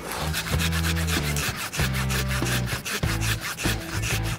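Silky Katana Boy 1000, a large folding Japanese pull saw, cutting through a spruce log by hand: a steady run of rapid, even rasping strokes of the teeth through the wood.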